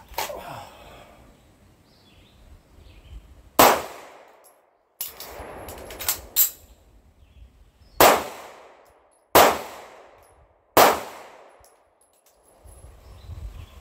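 Sig P226 pistol shots fired one at a time, several sharp cracks each trailing off in a short echo, the last three about a second and a half apart.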